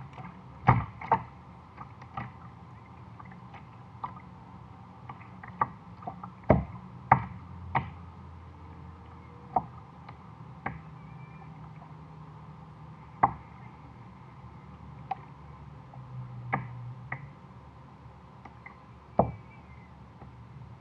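Irregular sharp knocks and taps on a plastic kayak's hull, about one a second and uneven in loudness, over a faint steady low hum.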